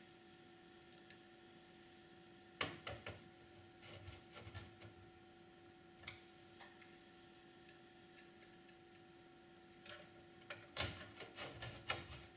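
Faint clicks and taps of hands fitting a motherboard into a Power Mac G4's metal case, in small clusters about three and four seconds in and again near the end, over a steady faint hum.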